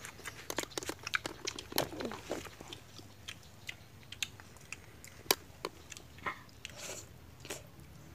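Close-up eating sounds: chewing, biting and wet lip-smacking on tamarind-sauced balut, heard as an irregular run of short clicks and smacks.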